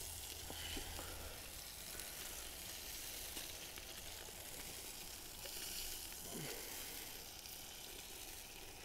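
Whole chicken roasting in an open Cobb grill, with a faint, steady sizzle from the hot pan.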